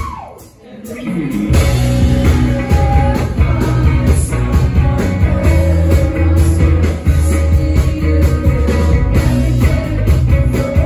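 Indie rock band playing live and heard from the crowd: electric guitars, bass, drums and keyboard, with a woman singing. Near the start the music falls away almost to nothing for about a second, then the full band comes back in.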